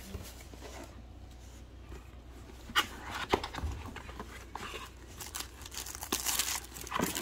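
Packaging being handled during an unboxing: a few sharp taps and clicks, with light rustling that turns into louder crinkling near the end.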